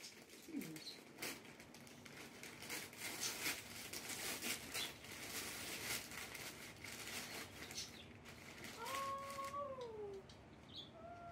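Christmas gift wrapping paper rustling and crinkling as it is handled and torn open. About nine seconds in, a drawn-out call holds its pitch and then falls, with a shorter gliding call near the start and again near the end.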